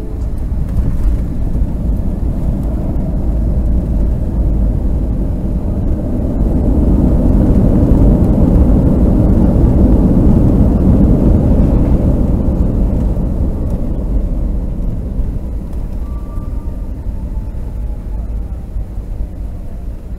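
Jet airliner engines and runway rumble heard from inside the cabin by the wing. The roar swells to a peak about halfway through and then slowly dies away, with the wing's spoilers raised as the plane rolls down the runway.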